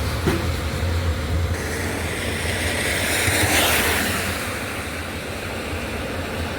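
A vehicle passing on a wet road: its tyre hiss swells up and fades away about halfway through. Underneath runs a steady low engine hum.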